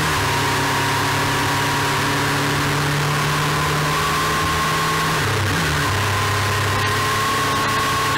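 Motorcycle engine running at a steady road speed, with wind rush over the microphone. About five seconds in the engine note drops and settles lower.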